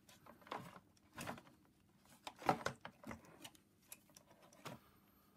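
Scattered light knocks and rustles of hands and a screwdriver moving among the tubing and plastic housing of an opened steam vacuum cleaner, the loudest knock about halfway through.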